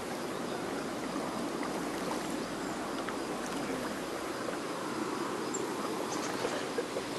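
Shallow seawater lapping gently and steadily at the shoreline around bare ankles, an even wash with a few small splashes near the end.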